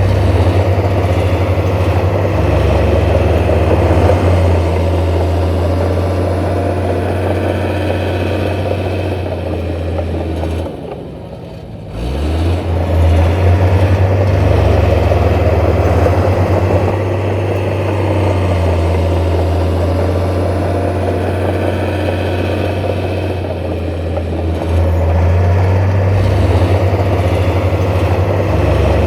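Diesel engine of heavy earthmoving machinery running steadily. It drops off about eleven seconds in, then picks up again.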